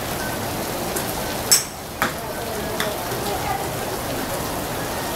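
A driver's clubhead striking a teed golf ball once, a sharp crack about a second and a half in, followed by a couple of fainter clicks, over a steady hiss of background noise.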